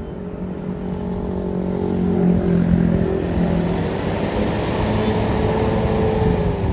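Tour bus engine running with a steady low hum, growing louder over the first few seconds as the bus moves off or draws near.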